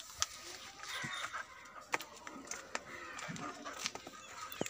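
Chickens clucking faintly, with several sharp clicks scattered through.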